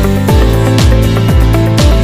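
Upbeat electronic music with a steady kick drum about twice a second under sustained synth tones.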